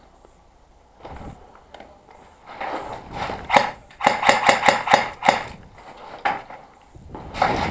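Airsoft gunfire: sharp cracks in a fast, even string of about five a second, from about four seconds in until just past five, with scattered knocks before it and another loud burst starting near the end.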